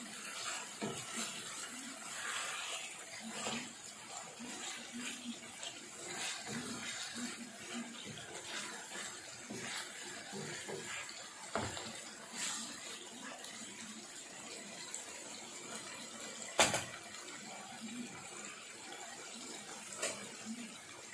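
Thick rendang sauce simmering and bubbling in a non-stick frying pan while a wooden spatula stirs and scrapes through the beef ribs and potatoes. A few sharp knocks, the loudest about 17 seconds in.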